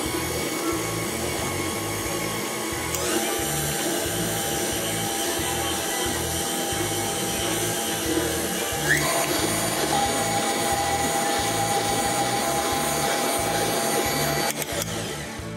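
Electric stand mixer running steadily, its flat beater churning sticky cookie dough in a glass bowl. The motor stops near the end, with background music with a steady beat underneath.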